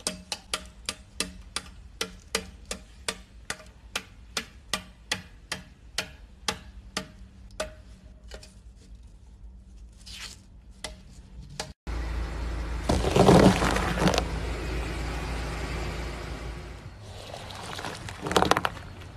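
Teeth of a black plastic comb snapped off one after another by a blade: a run of sharp clicks, about two or three a second, that thins out over the first eight seconds. Then a car tyre rolls onto a pile of soft purple goo over a low rumble, with a loud wet squish, and a second squish near the end.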